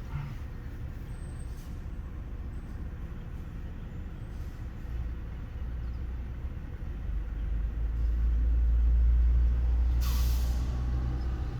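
A heavy truck's engine rumble builds and is loudest about eight to ten seconds in. Then comes a short, sharp hiss of air brakes being released.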